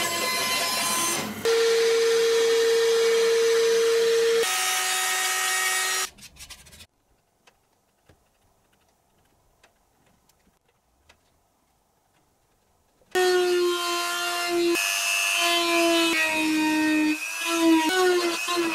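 A small bench band saw runs and cuts a pale wooden block, its motor tone dropping once partway through before the saw stops about six seconds in. Near silence follows, with faint ticks of a pencil marking the wood. About thirteen seconds in, a handheld rotary tool whines on and its pitch wavers and dips as the bit grinds notches into the wooden strip.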